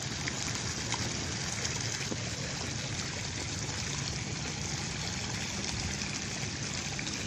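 Steady, even background noise with a faint low hum underneath and no distinct events: the ambient sound of the open air at the lakeside.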